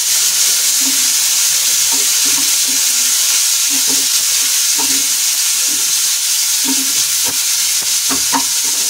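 Tomato pieces, green chillies and curry leaves sizzling in hot ghee in a non-stick frying pan, with a wooden spatula stirring them and making repeated short scrapes and knocks against the pan.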